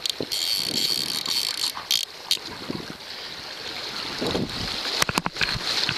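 Rushing stream water and wind on the microphone make a steady hiss, louder for about the first second and a half. A few sharp knocks come near the start, around two seconds in, and about five seconds in.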